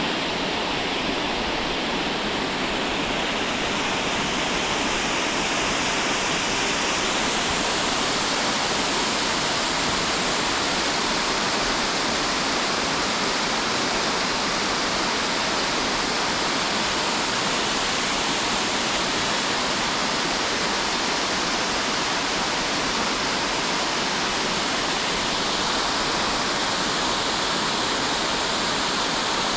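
Waterfall in spring flow: a steady, even rush of falling water.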